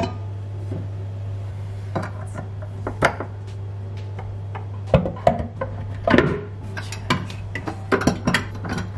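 Parts of an Ankarsrum Assistent stand mixer being handled: the stainless steel bowl lifted off, the plastic bowl set on and the whisk attachment fitted, giving a series of irregular clinks and knocks of metal and plastic, busiest in the second half. A low steady hum runs underneath.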